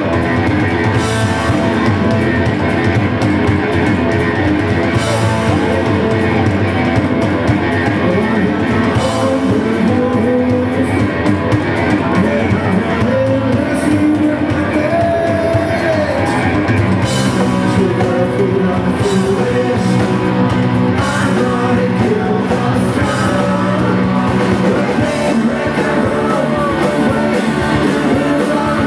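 Live rock band playing: electric guitars and a drum kit, with a sung lead vocal over them.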